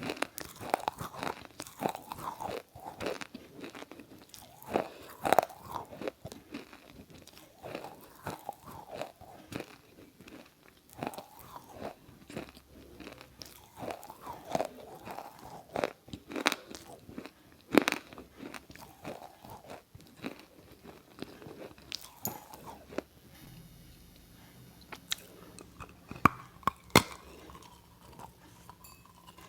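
Crunching and chewing of something crisp, in irregular loud crunches about once a second, which thin out about three quarters of the way in before a few more near the end.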